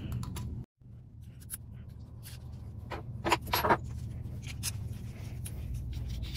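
Light clicks and scrapes of small metal parts and a hex driver being handled and fitted into a bolt on an RC truck's aluminium steering assembly, over a low steady hum.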